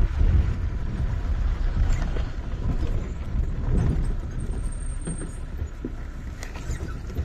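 Safari vehicle's engine running as it moves slowly forward along the forest track, a low rumble that gradually gets quieter.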